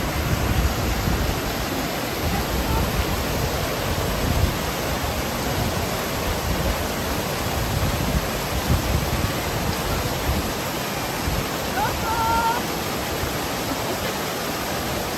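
Mountain stream rushing in a steady, continuous cascade over boulders.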